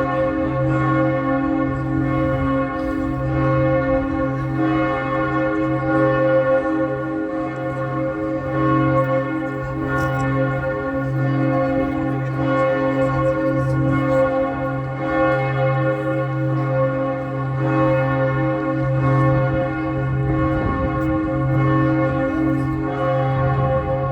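Large church bells ringing continuously, a deep low tone swelling and fading about once a second as the bells swing, under a steady mix of higher ringing tones.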